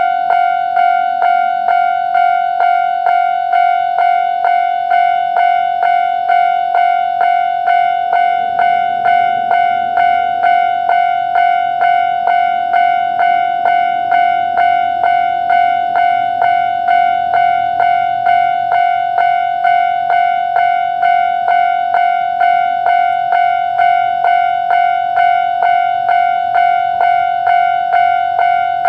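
Japanese railway level-crossing alarm sounding its electronic bell, a bright ringing note repeated about twice a second, warning that a train is approaching and the crossing is closed.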